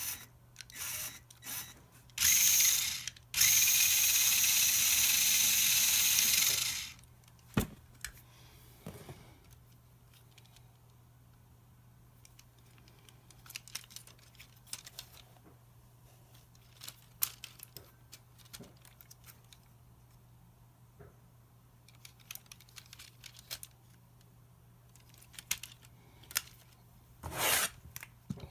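Hard plastic parts clicking and rattling as they are handled, with a loud, steady rushing rattle lasting about three seconds starting a few seconds in.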